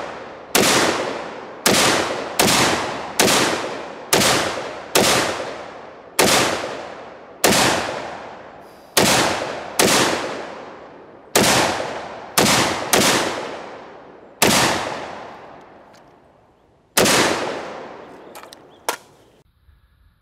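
AR-15 rifle in .223 Wylde fired semi-automatically at a steady pace, about thirteen shots spaced half a second to two seconds apart, each trailing off in a long echo. A short sharp click near the end.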